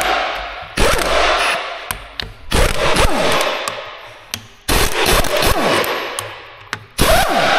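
Heavy impact wrench hammering in repeated bursts on tight bolts of a dozer final drive. Each burst starts sharply and tails off over a second or two, with new bursts about every two seconds.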